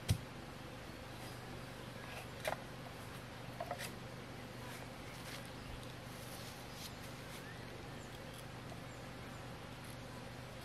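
Bamboo pole being handled in undergrowth: a sharp knock just at the start, another about two and a half seconds in, and a short cluster of clicks and rustles near four seconds, over a faint steady low hum.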